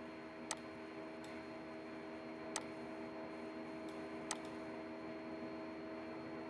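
Four isolated sharp clicks from working a computer, spaced irregularly, over a faint steady electrical hum.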